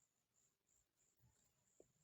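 Near silence: a pause in the narration, with only a very faint high tone coming and going.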